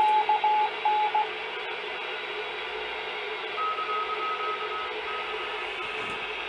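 R1155 bomber radio receiver picking up a Morse code signal, dots and dashes beeping at one steady pitch over static hiss. It stops about a second in, leaving only static, and about halfway through a fainter, higher-pitched Morse signal comes in.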